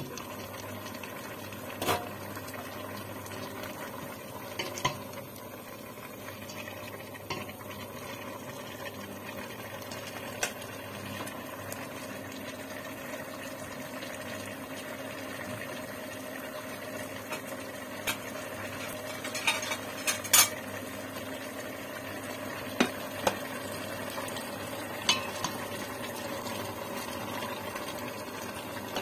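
Chicken in sauce simmering in a stainless steel pot, a steady bubbling, with about a dozen sharp clicks and knocks of the glass lid and a wooden spatula against the pot, the loudest about twenty seconds in.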